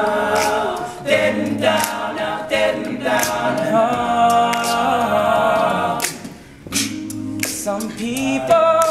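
All-male a cappella group singing wordless backing chords in close harmony, with a steady beat of sharp clicks. The voices briefly drop out about two-thirds of the way through, then come back in.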